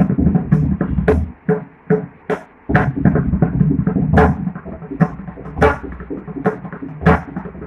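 Solo Carnatic mridangam in Adi tala: quick runs of sharp hand strokes on the right head, ringing on a clear pitched note, with deep bass strokes from the left head beneath them.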